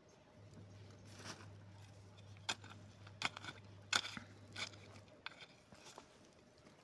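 Small wooden-handled hand hoe digging into garden soil to turn up potatoes: about five short crunching strikes, spaced roughly a second apart. A faint steady low hum runs underneath and stops about five seconds in.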